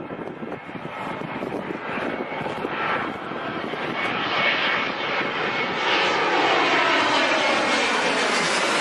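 Jet airliner's engines running and growing steadily louder as the plane passes close by on approach, with a sweeping, falling tone near the end and a faint high whine.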